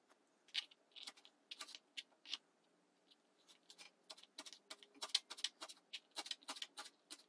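Kitchen knife chopping fresh cilantro on a plastic cutting board: sharp taps of the blade, a few scattered at first, then quicker from about halfway.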